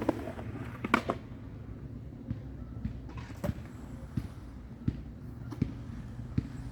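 Skateboard rolling on concrete: a steady wheel rumble with a string of short clacks and knocks, the loudest about a second in.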